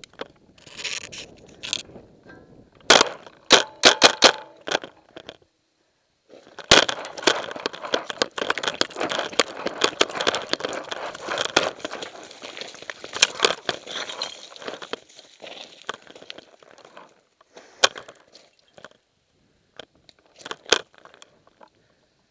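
Crunching and scraping of a player moving over loose gravel, rocks and dry leaves. A run of sharp knocks comes about three to five seconds in, and a few single clicks come near the end.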